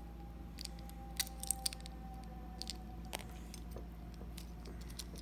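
Small clicks and taps of a diecast toy car's plastic and metal parts being handled and fitted together during reassembly, with a quick cluster of sharper clicks about a second and a half in and another near three seconds.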